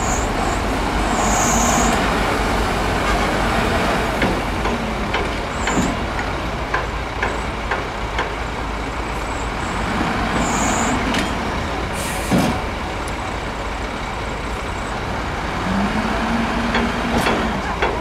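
Heavy diesel earthmoving machinery running steadily, with scattered clanks and a few short hisses of air.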